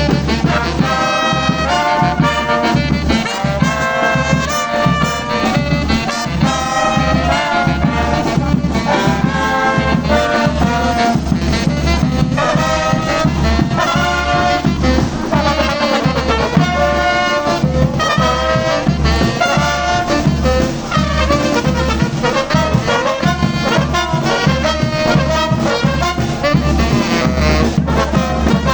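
A brass orchestra of trumpets and trombones playing a continuous tune over a steady bass line.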